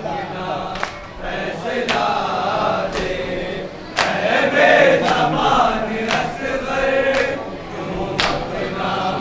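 A group of men chanting an Urdu noha (Muharram lament) in chorus. Sharp slaps come roughly once a second, the beat of matam (chest-beating) that keeps time with the noha.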